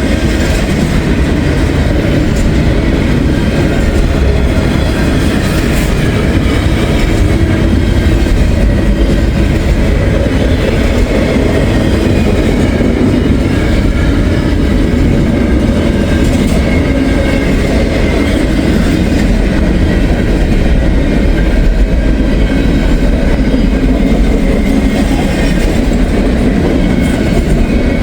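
A long Norfolk Southern intermodal freight train of container cars rolling steadily past close by, its wheels running on the rails in a continuous loud rumble.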